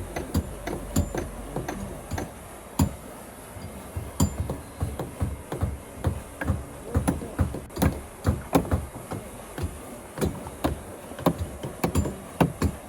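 Hammers knocking on timber shuttering: irregular hammer blows, several a second and of uneven strength, as nails are driven into the wooden formwork.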